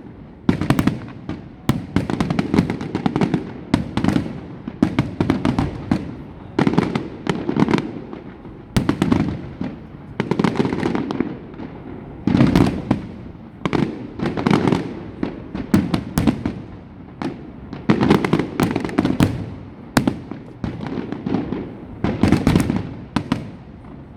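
Fireworks display: a rapid barrage of shell bursts, a sharp bang about every second, each trailing off in a low rumbling echo.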